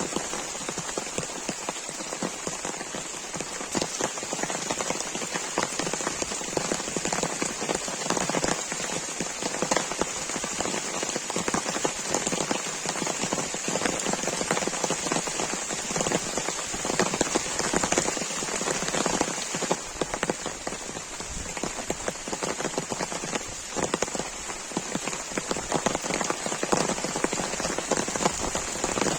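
Heavy rain falling steadily, dense drops pattering on a surface close by.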